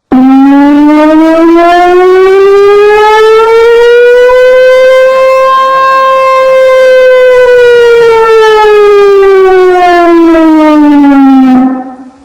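Mock emergency alarm siren sounding one loud, slow wail: its pitch rises for about six seconds and falls back down, then it cuts off suddenly near the end.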